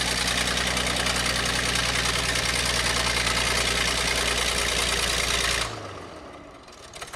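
Bulldozer engine running steadily and loudly, then the sound drops away abruptly near the end, leaving faint sharp clicks.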